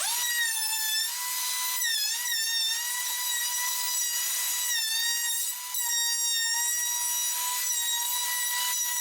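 Handheld wood router starting up and running at high speed, rounding over the edge of a plywood ramp piece: a steady high whine that dips briefly in pitch a few times as the bit cuts into the wood.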